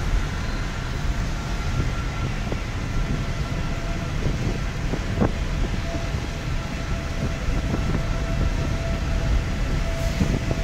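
Steady low rumble of a car driving at highway speed on a wet road, heard from inside the cabin, with a faint steady whine.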